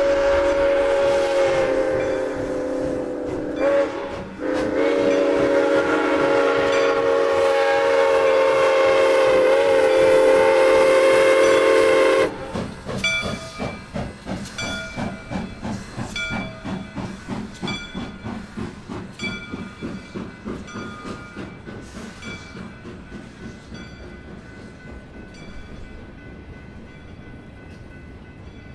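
Soo Line 1003, an ALCO 2-8-2 Mikado steam locomotive, blowing its chime whistle: a long blast, a brief break about four seconds in, then a second long blast that cuts off sharply about twelve seconds in. After that comes its exhaust chuffing in a quick, even beat, fading away as it runs by.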